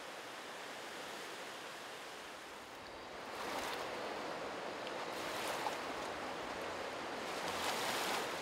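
Rushing water of the muddy Magdalena River, an even wash that grows louder about three seconds in, as small waves splash against the bank.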